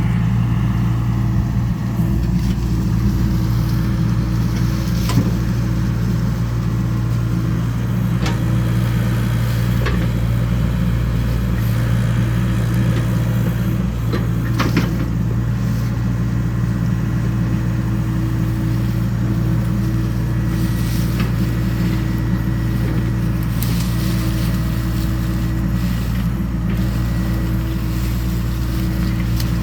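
Excavator's diesel engine running at a steady speed, with a few short knocks or clanks from the machine scattered through.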